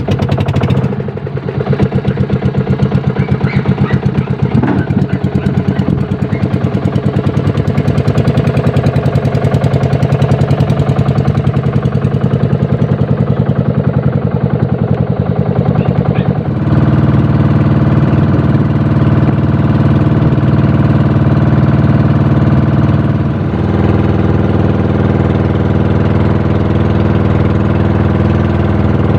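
Outrigger fishing boat's inboard engine running under way, a fast steady pulsing beat. It gets louder and its pitch shifts a little past halfway, then changes again near the end.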